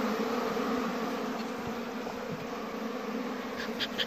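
Honeybees buzzing in a steady hum over an opened hive's frames. A short run of high chirps comes near the end.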